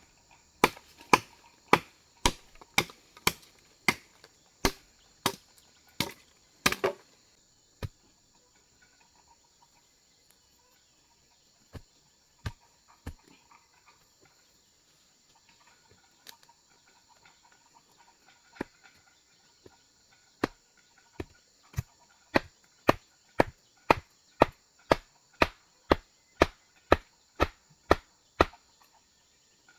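Chopping blows on wood, struck steadily a little under twice a second, then pausing for over ten seconds with only a few scattered strikes, then resuming at the same pace. A steady high insect drone runs underneath.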